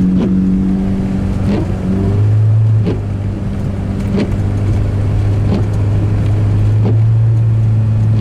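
Car engine running while driving, heard from inside the cabin; its pitch steps up about two seconds in as the car speeds up. A light regular click sounds about every second and a half over the drone.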